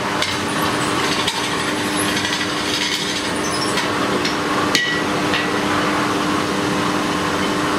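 A smith straightening a small forged iron piece with light hammer taps, a few of them sharp clicks, over the steady hum of a forge blower.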